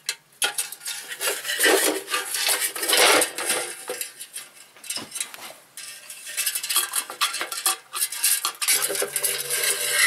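Metal clinking, knocking and scraping of a wire heating coil and its wrapped former being handled and fitted into the metal can that forms the body of a homemade muffle furnace; irregular knocks and rattles throughout.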